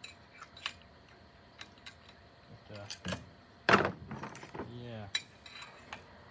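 Light metallic clicks and clinks of hand tools and parts being handled while a chainsaw is taken apart, with one louder clatter a little past halfway.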